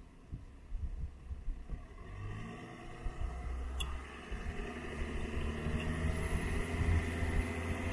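A Land Rover Defender's engine running, rising and growing louder from about two and a half seconds in, with a low rumble, as the vehicle works in soft sand with a caravan hitched behind it.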